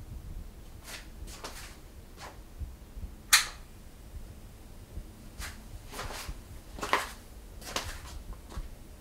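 A string of light knocks and clicks at uneven intervals, with one sharp click about three seconds in that is the loudest, over a low rumble.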